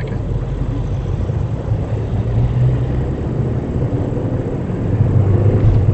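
Engine and road noise inside the cabin of a loud, high-mileage car on the move, a steady low hum that grows louder about five seconds in.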